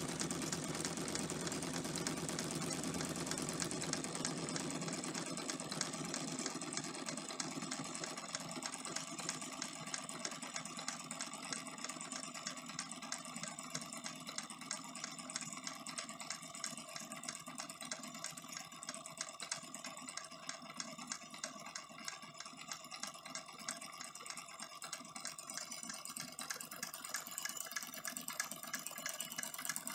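Mamod and Wilesco live-steam model engines running, with a rapid, steady clatter and a hiss as they drive the belts, line shafting and miniature workshop machines. The sound eases slightly after the first few seconds.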